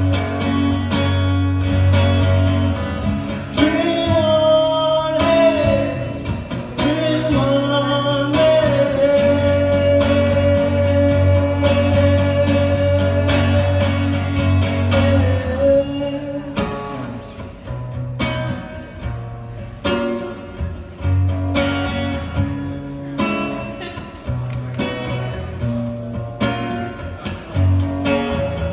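Solo male singer accompanying himself on a strummed acoustic guitar, heard through a PA. The playing eases to lighter strumming about halfway through.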